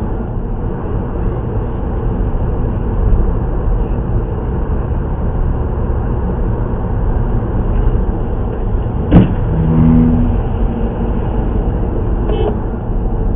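Steady road and engine noise heard from inside a moving car's cabin, with one sharp knock about nine seconds in, followed briefly by a low steady hum.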